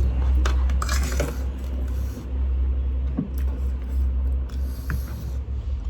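A few short scrapes and clicks of an eating utensil against a bowl or plate, over a steady low hum.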